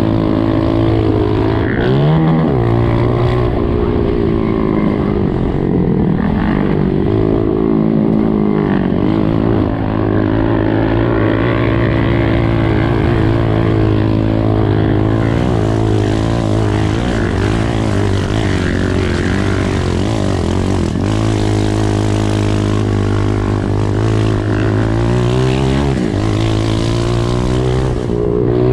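Honda CRF125F's single-cylinder four-stroke engine running hard under a rider on a motocross track, its pitch rising and falling as the throttle opens and closes and the gears change.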